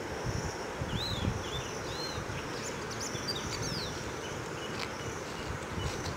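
Farmland ambience: small birds giving several short arched chirps, mostly in the first half, over a steady insect buzz. Some low rumbling runs underneath.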